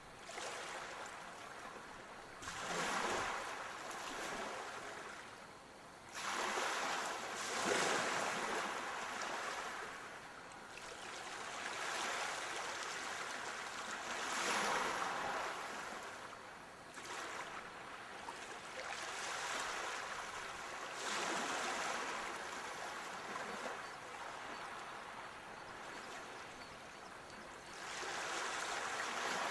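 Sea waves breaking and washing on a shore, a hiss that swells and falls back in surges every few seconds.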